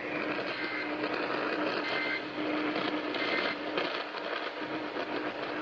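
Radio receiver hiss and static as an Emergency Alert System relay ends, with three faint short data bursts about a second and a half apart: the EAS end-of-message tones.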